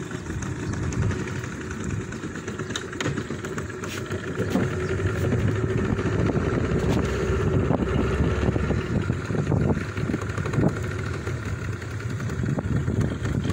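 A small boat's engine running steadily at low speed, growing a little louder partway through.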